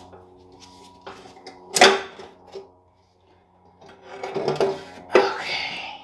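Stamped-steel valve cover being worked loose and lifted off a straight-six engine: metal knocks and clanks, a sharp knock about two seconds in, then a louder clatter and scrape near the end as the cover comes free.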